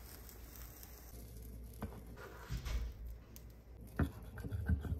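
Quiet kitchen sounds with a few light clicks; about four seconds in, a fork taps and scrapes on a ceramic plate as it cuts into an omelet.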